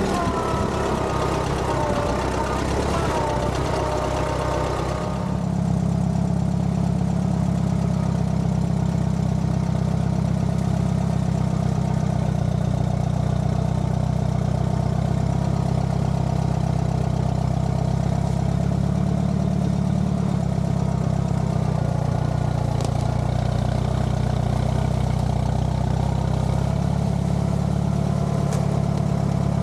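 Allis-Chalmers B tractor's four-cylinder engine running steadily as the tractor drives. The engine note changes abruptly about five seconds in and then holds steady.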